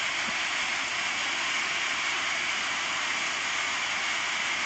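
Steady rushing hiss of water, even and unbroken, with no distinct splashes or impacts.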